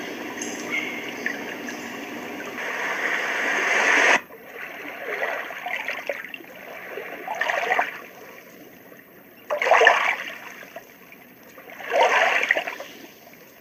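White noise machine playing a recorded running-water sound, a stream-like trickle. About four seconds in it cuts off abruptly and gives way to another water sound that swells in separate surges every two seconds or so.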